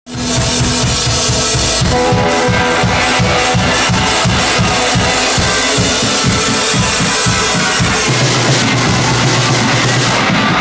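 Small rock band playing live in a rehearsal room: drum kit and electric guitar, loud. A fast, even drum beat with cymbal strokes runs from about two seconds in, and near eight seconds the low rhythm gives way to a held low note.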